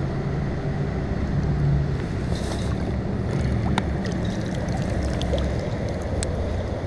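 Shallow creek water sloshing and splashing around wading feet, with a steady low rumble on the microphone and a few small clicks.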